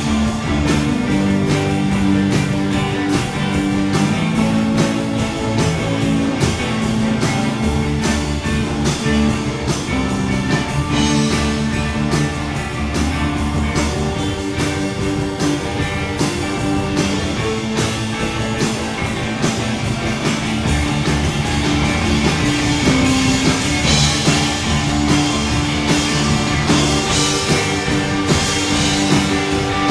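Worship band playing on without singing: electric guitar and a drum kit keeping a steady beat.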